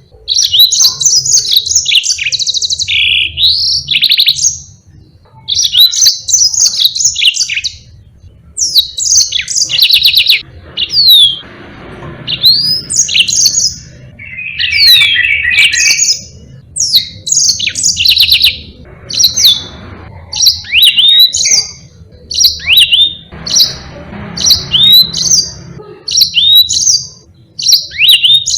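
Yellow-fronted canary (Mozambique singer finch) singing a long, fast song of chirps, trills and rising and falling whistles, in phrases broken by brief pauses.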